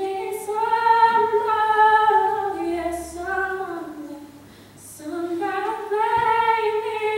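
A young woman singing solo, holding long, slow notes in two phrases with a breath between them about four and a half seconds in.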